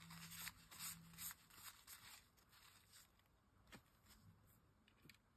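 Faint rustling strokes of a paper towel buffing a small die-cut cardstock turtle, mostly in the first two seconds, then a few faint ticks.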